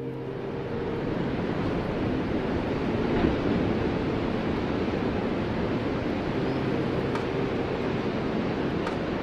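Ocean surf: a steady wash of breaking waves that swells a little over the first few seconds. A faint low hum sits underneath near the start and again around seven seconds in.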